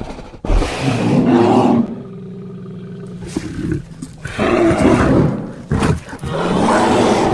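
Bear roaring three times, with a quieter, steady low growl between the first and second roars.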